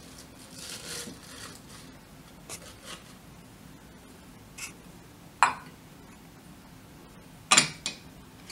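Spinach leaves rustling as they are pushed into a blender jar, then a ceramic bowl knocking against a serving tray and its dishes: two sharp clinks about two seconds apart, the second the louder.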